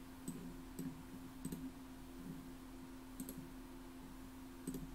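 A handful of faint, sharp computer mouse clicks at irregular intervals, about six in all, two of them close together a little past the three-second mark. They sound over a faint steady low electrical hum.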